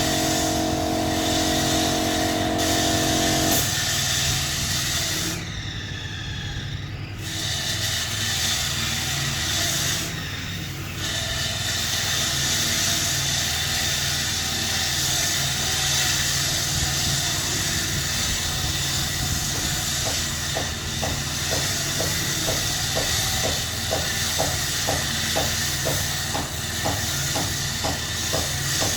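Paint spray gun hissing steadily over a running motor hum, stopping briefly twice.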